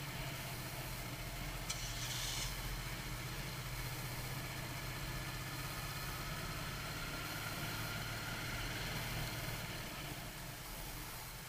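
Motorcycle engine running at low speed while riding, a steady low hum with a faint whine that rises and falls. A short hiss about two seconds in.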